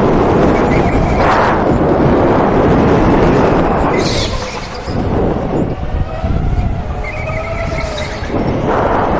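Electric go-kart at speed: a thin motor whine over a heavy rushing noise of tyres and air. The whine climbs a little near the end as the kart accelerates out of a corner, and a brief hiss comes about four seconds in as it turns through a hairpin.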